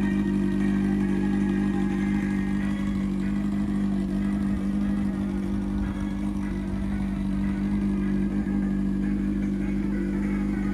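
Yamaha XJR400's air-cooled inline-four engine running steadily at idle through a Waltz Kikai aftermarket exhaust, a constant drone with no revving.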